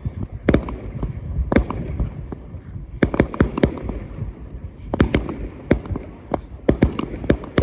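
Fireworks display: aerial shells bursting in a rapid, irregular run of sharp bangs, coming thickest from about three seconds in.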